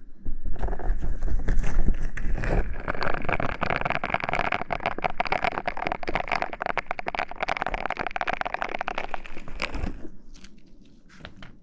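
ASMR hair-washing sounds: fingers scrubbing and rubbing close to the microphone, giving a loud, dense crackle that starts about half a second in and fades out near the end.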